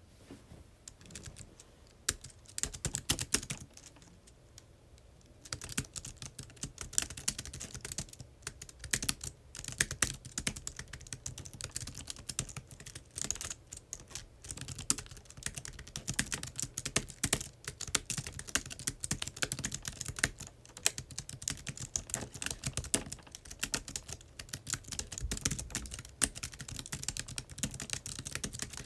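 Typing on a computer keyboard: a few scattered keystrokes at first, then steady continuous typing from about five seconds in.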